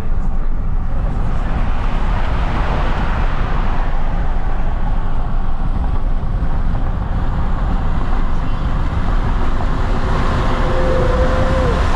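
Steady, loud rumble of wind and road noise while travelling, with a brief thin squeak-like tone near the end.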